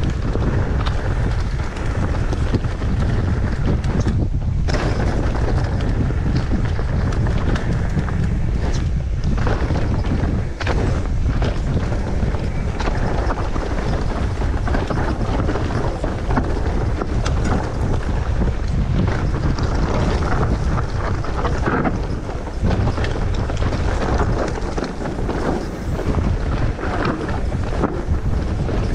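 Wind rushing over the microphone as a mountain bike rides down a dirt singletrack, mixed with tyre noise over dirt and stones and short clatters from the bike over bumps.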